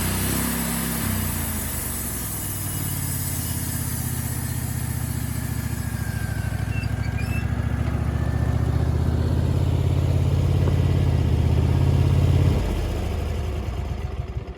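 Wood-Mizer portable bandsaw mill's engine running under load as the blade cuts through a very hard hedge apple (Osage orange) log. The engine sound builds slightly, changes about twelve seconds in, and falls away near the end.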